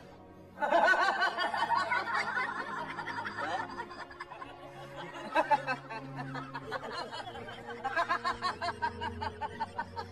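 Laughter, snickering and chuckling in quick runs, over background music.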